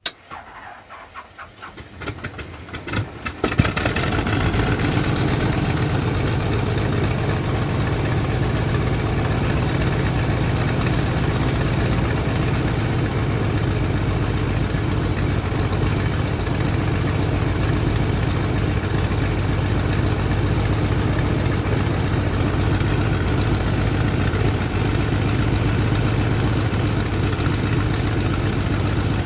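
Biplane's piston engine starting: separate firing strokes that come faster over the first three and a half seconds, then it catches and runs steadily at idle.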